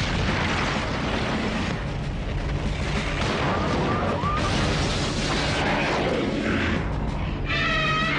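Cartoon sound effects of rubble crashing and a long heavy rumble under dramatic background music. Near the end, Godzilla roars: a wavering, high-pitched call.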